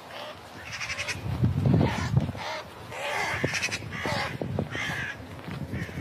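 A crow cawing repeatedly, about seven short, harsh caws. Low rumbling noise comes in between one and a half and two seconds in.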